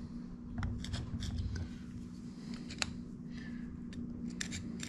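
Light metallic clicks and scrapes of a small screwdriver and parts being worked on the upright shaft of a Tuff Torq K46 transaxle, with one sharper click about three seconds in. A steady low hum runs underneath.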